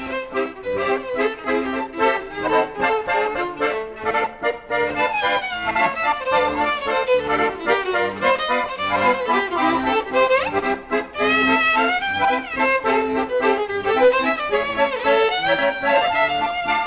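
Background music led by an accordion, playing a melody over a steady rhythmic accompaniment.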